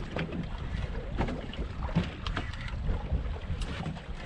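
Outboard engine idling under wind buffeting the microphone, with a few short knocks and clicks scattered through.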